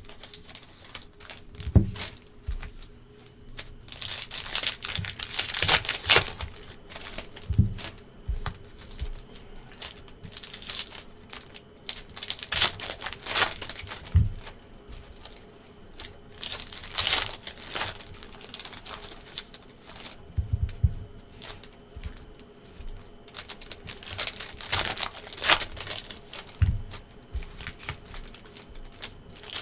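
Trading-card pack wrappers crinkling and tearing as Panini NBA Hoops packs are ripped open, in irregular rustling bursts with a few soft knocks.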